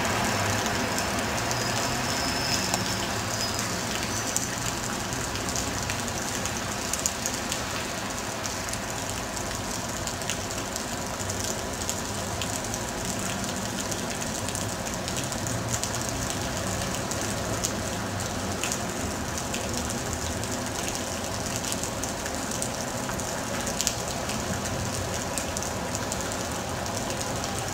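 Rail noise of an electric passenger train running away down the tracks, fading over the first several seconds, then a steady distant rumble as another locomotive-hauled train approaches, with occasional sharp clicks.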